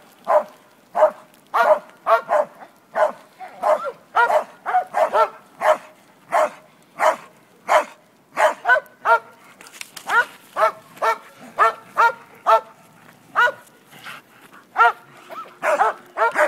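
A dog barking repeatedly in quick runs, about two sharp barks a second, with a few short pauses along the way.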